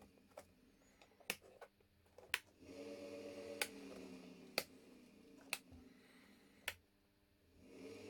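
A brushless two-speed washing machine motor humming as it is switched between speeds and directions, with sharp clicks from rocker switches being flipped about once a second. The hum swells about three seconds in, dies away near the seventh second as the motor is switched off, and starts again just before the end.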